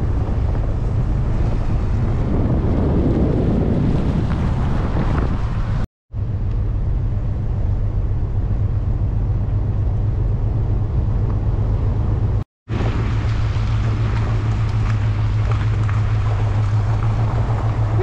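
Wind buffeting the camera microphone on a moving Chevrolet Suburban, over a steady low road and engine rumble. The sound cuts out abruptly twice.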